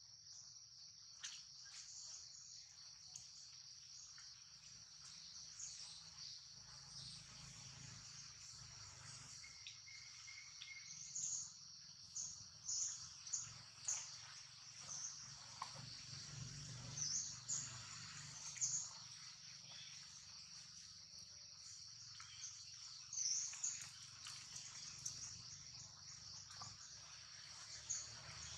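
A steady high-pitched insect drone, with short high chirps now and then, clustered in the middle of the stretch.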